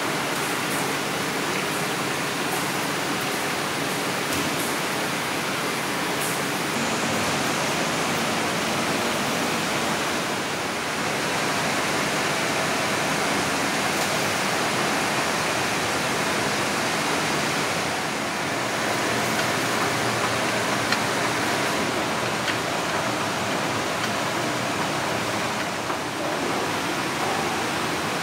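Steady rushing noise of a confectionery factory floor, an even hiss with no distinct machine rhythm or tone.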